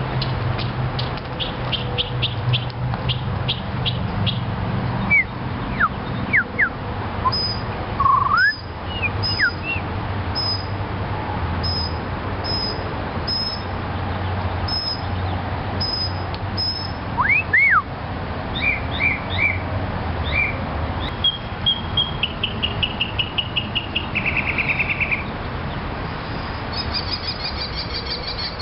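A songbird singing a long, varied song. It moves through phrases of quick repeated high notes, sharp whistled slurs sweeping up and down, and a fast trill, with each phrase given several times before the next. A low steady rumble runs underneath.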